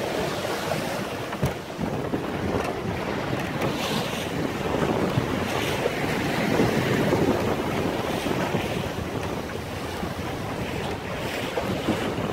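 Wind buffeting the microphone over choppy water rushing and slapping against the hull of a 19-foot sailboat under sail, with one sharp knock about a second and a half in.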